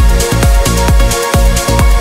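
Trance track playing: a steady four-on-the-floor kick drum about twice a second, with hi-hats and held synth chords over a deep bass.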